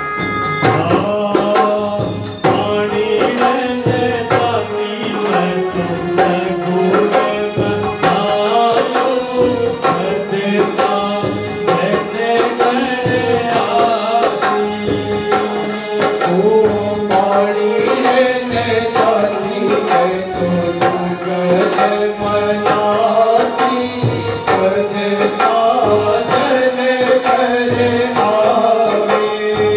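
Indian folk music: a hand drum keeps a steady beat with regular small cymbal strikes, under a melody line that bends up and down.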